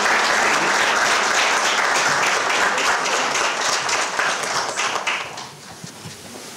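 Audience applauding, a dense patter of many hands that fades away about five seconds in.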